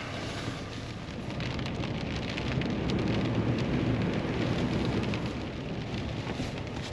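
Rain striking a truck's roof and windshield as a dense spray of drops, swelling slightly midway, over a steady low rumble.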